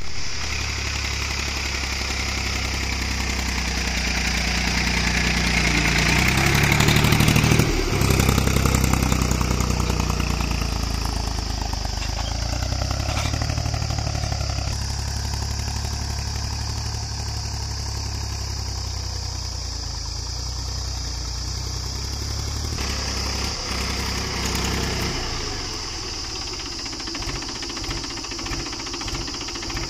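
Mahindra 275 DI tractor's three-cylinder diesel engine running while pulling a spring-tine cultivator through dry soil. The engine grows louder over the first several seconds, then holds steady. Near the end, heard close up, it settles into an even, slower chugging.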